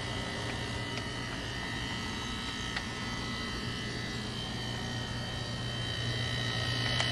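Steady hum of a boat's cabin air-conditioning unit running: a low drone with a thin, high, steady whine above it. A couple of faint clicks come through.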